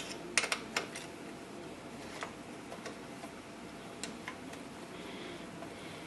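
Small metallic clicks and ticks of an Allen wrench and caliper mounting bolts being worked out of an e-bike's rear disc brake caliper. A quick cluster of clicks comes in the first second, followed by scattered fainter ticks.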